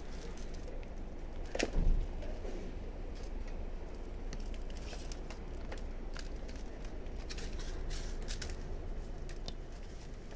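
Scattered light clicks and scratches of kittens' claws catching on fabric as they climb, over a steady low rumble, with one louder thump about two seconds in.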